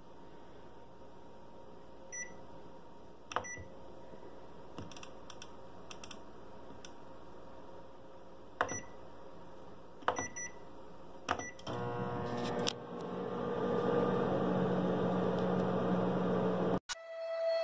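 Microwave oven control panel giving a few short beeps and button clicks as the cook time is entered. About twelve seconds in, the oven starts and runs with a steady hum, which cuts off suddenly near the end.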